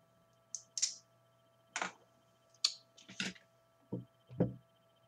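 A few scattered small clicks and light knocks from a glass beer bottle being handled.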